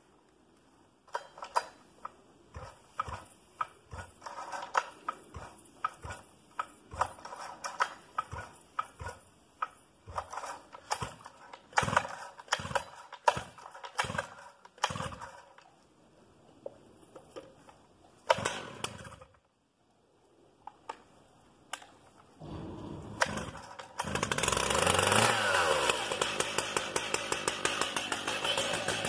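Stihl MS 880 chainsaw's large two-stroke engine being cold-started after five months unused. There is a long series of uneven knocks and pops as it is cranked over by the pull cord. After a short pause it catches and runs, its speed swinging up and down briefly before it settles into a steady run.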